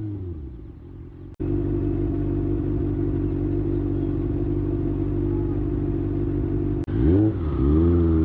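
Kawasaki Ninja ZX-6R's inline-four engine through an IXIL slip-on exhaust. The revs fall away at the start. After an abrupt break the engine runs at a steady pitch for about five seconds. Near the end comes a quick blip up and down in revs, and it settles at a steady, slightly higher pitch.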